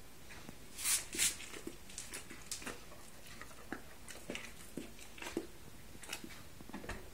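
Basset hound taking food from a hand and eating it: two short, loud rushes of noise about a second in, then a scattered run of small clicks and smacks of chewing and licking.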